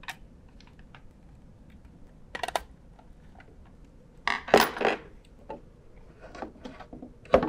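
Plastic clicks and clatter as a DIN-rail electricity meter is handled and pressed onto the metal DIN rail in a plastic enclosure, its spring-loaded clip latching. The loudest clatter comes about halfway through, with a sharp click near the end.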